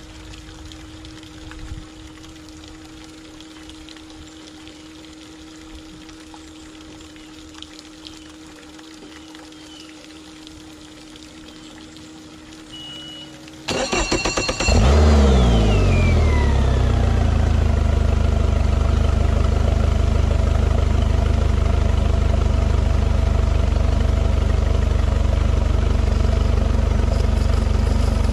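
2018 Mercury 150 four-stroke outboard's four-cylinder engine being started: after a low steady hum and a short beep, the starter cranks for about a second and the engine catches, a whine falling away over the next few seconds as it settles into a steady idle.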